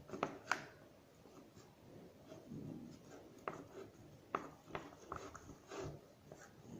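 Light scraping with scattered sharp clicks and taps, a utensil stirring a mixture of PVA glue and shaving foam in a container to make slime.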